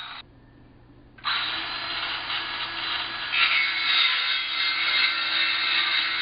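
A saw cutting through wood. It breaks off for about a second near the start, then cuts steadily again.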